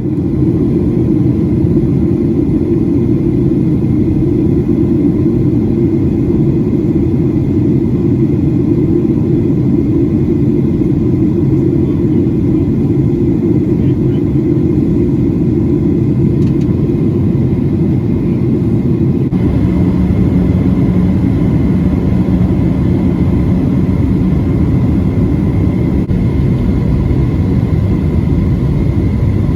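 Steady rumble of a Boeing 737-700's cabin in flight, from its CFM56-7B turbofans and the airflow past the fuselage, with a faint steady whine. About two-thirds in, a lower steady hum joins.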